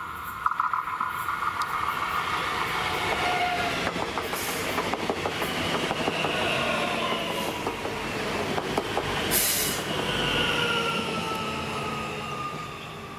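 A two-unit electric multiple unit passing at speed: wheels rumbling on the rails with clicks over the rail joints and the traction motors whining, the whine sliding down in pitch as the train goes by. It fades near the end.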